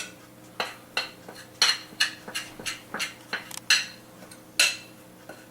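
Metal utensil clinking and tapping against cookware in a run of irregular sharp strikes, about two a second, while pancakes are being made.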